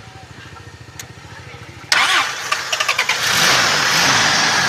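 Car engine starting: about two seconds in it suddenly catches with a loud burst, then keeps running loudly.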